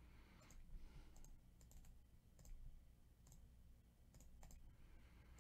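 Faint clicks of a computer mouse, several of them spaced irregularly about half a second to a second apart, over a low room hum.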